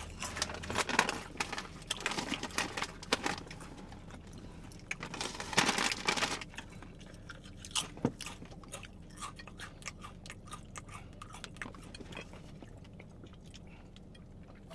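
Crunchy tortilla chips, Paqui Haunted Ghost Pepper chips, being chewed with the mouth close to the microphone: dense crunching at first, with a louder stretch about five seconds in, then thinning out to occasional crackles.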